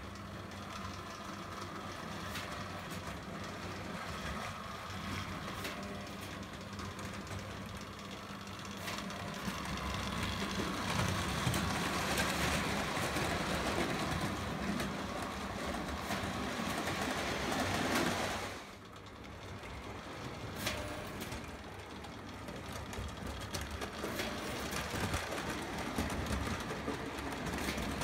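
Lionel O gauge electric toy train running on tinplate track: a steady motor hum with the wheels rolling and clicking along the rails. It grows louder for a while, then drops suddenly about two-thirds of the way through.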